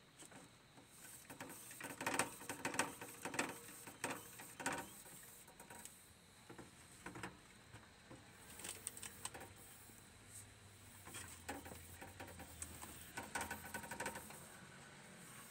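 Hamsters scrabbling about in plastic-and-wire cages: irregular bursts of small clicks, scratches and rustles from claws on plastic, bars and bedding.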